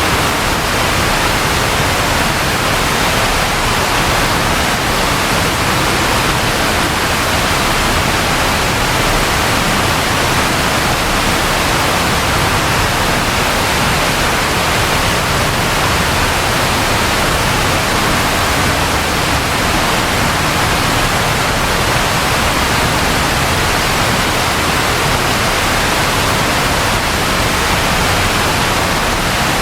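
Steady, continuous rainfall, an even hiss without pauses; no thunder clap sounds.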